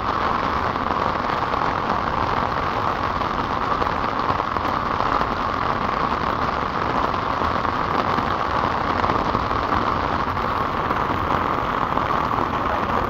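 Heavy rain falling steadily on wet pavement: a constant, even hiss with no let-up.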